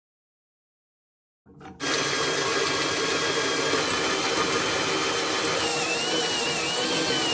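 Silence, then an electric power tool starts about one and a half seconds in and runs steadily and loudly, with a high tone in its sound wavering slightly near the end.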